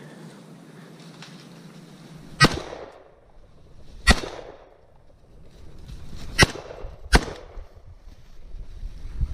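Four rifle shots during a boar hunt, each a sharp crack with a short echoing tail: two a second and a half apart, then two more close together.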